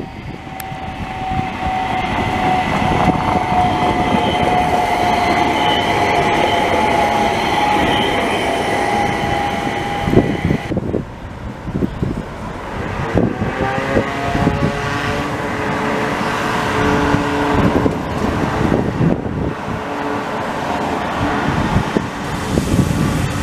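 Electric low-floor trams passing on street track. The first gives a steady whine over wheel-on-rail rumble, falling slightly in pitch. Then, after a sudden change, another tram's motor whine rises in pitch for a second or two and then holds steady as it runs by.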